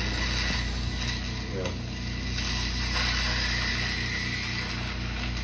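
Medical suction running during nasal cleaning: a steady hiss over a low hum, with a faint thin whistle in the middle.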